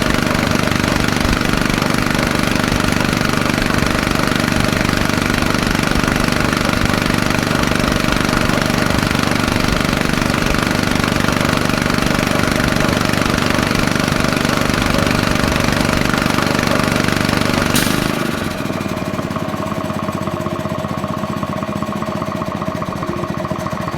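Diesel engine of a portable engine-driven air compressor running steadily on test after a new injection pump head was fitted. About eighteen seconds in there is a click, and the running drops to a quieter sound with much less hiss.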